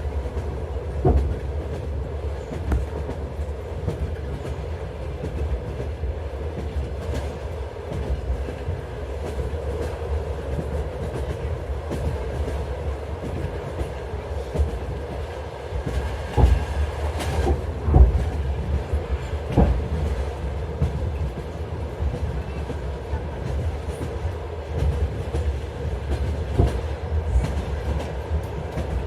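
Train in motion: a steady low rumble with a constant hum, broken by irregular knocks and clacks from the running gear, the loudest a cluster about two-thirds of the way through.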